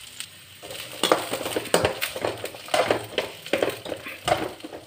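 A slotted metal spatula scraping and knocking against a metal kadai as it stirs whole shallots in oil, in irregular strokes that start under a second in.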